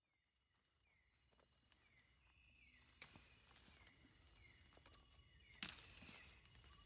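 Faint night chorus of rainforest insects fading in: a steady high buzz with evenly pulsing calls and short downward chirps repeating about every half second. Two sharp clicks come about three and five and a half seconds in.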